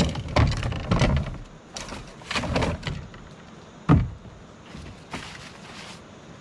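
Camping gear being handled: a string of dull thumps and knocks with rustling between them, the sharpest thump about four seconds in.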